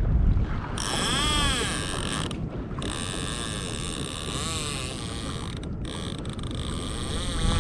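Fishing reel drag whining as a hooked fish pulls line off the spool, its pitch rising and falling as the run speeds up and slows.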